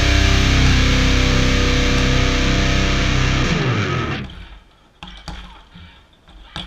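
Distorted electric-guitar rock music that fades out about four seconds in, followed by a few sharp smacks of fists hitting a small hanging punching bag.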